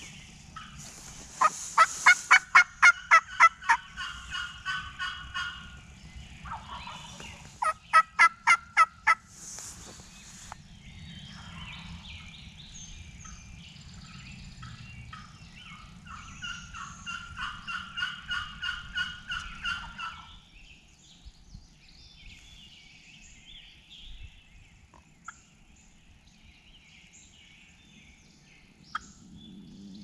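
Wild turkey gobbler gobbling: two loud rapid rattling gobbles, the first about a second and a half in and the second about eight seconds in, then a fainter run of calls a few seconds later.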